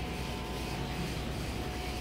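A steady, low mechanical rumble with a faint steady whine above it, holding even throughout.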